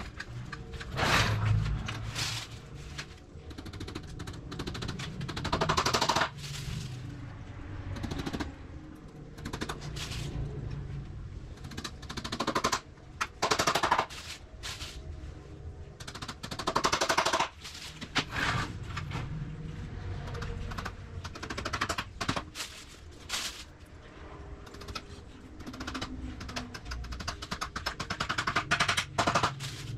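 A power tool run in repeated short bursts of rapid rattling, each about a second long.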